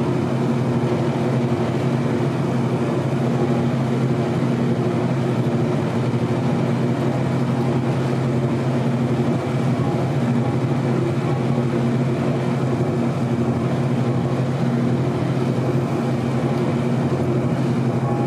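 Hydraulic elevator running: a steady, loud hum from its pump unit with a low droning pitch that holds unchanged.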